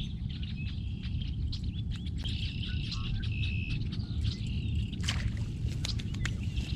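Birds chirping with short repeated calls over a steady low rumble, with scattered small sharp clicks.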